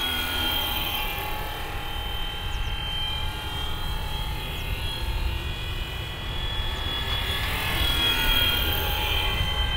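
Fly Wing Bell 206 V3 470-class RC helicopter's brushless motor and rotor running in flight: a steady high whine over a low rumble, its pitch wavering slightly as the throttle changes.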